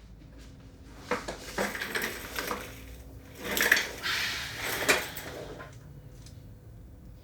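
Clattering and knocking of hard objects being handled, a quick run of knocks with a longer scraping rattle in the middle, settling back to a low background about six seconds in.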